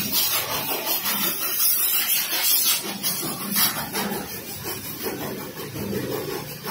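High-pressure washer jet hissing and spattering on a motorcycle, surging louder a few times as the spray sweeps over the bike and growing fainter near the end.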